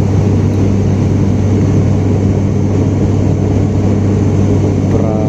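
Airliner engines droning steadily, heard from inside the passenger cabin as a loud, even hum with a constant low tone.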